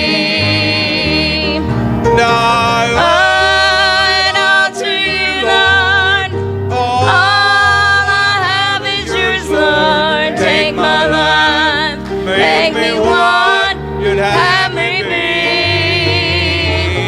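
Country gospel song: singing with instrumental accompaniment, held notes with vibrato over a steady bass line.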